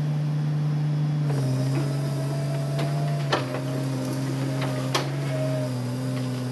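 Hitachi Zaxis excavator's diesel engine running under load while the bucket digs soil; the engine note steps lower twice, and a few sharp clanks come from the working bucket and arm.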